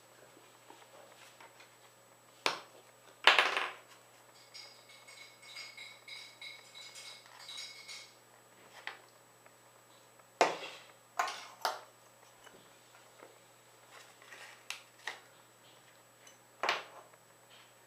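Paper being handled and pressed by hand, with scattered sharp clicks and taps, the loudest about three seconds in and a cluster about ten to twelve seconds in. In the middle, a glue stick rubbed over the paper gives a faint squeaky rubbing. Near the end comes a sharp click as a metal binder clip is fitted.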